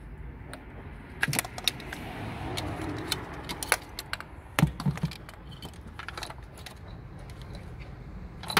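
Scattered metallic clicks and clinks of hand tools and engine parts being handled.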